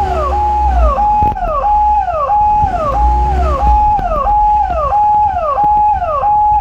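Electronic siren-like alarm sounding in a steady repeating cycle. Each note is held, then falls in pitch, about one and a half notes a second, over the low rumble of an idling vehicle engine.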